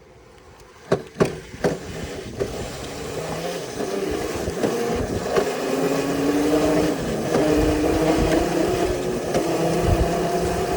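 A few sharp clicks, then a bike rolling along with tyre and wind rush that builds and grows louder, with a wavering hum through it.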